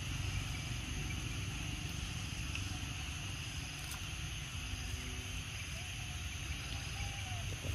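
Steady outdoor background noise: a constant low rumble with a high, even hiss over it, and no distinct event standing out.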